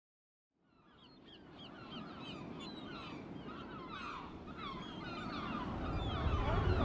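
A flock of birds calling, with many short overlapping calls, fading in about a second in. A low rumbling noise grows louder beneath them toward the end.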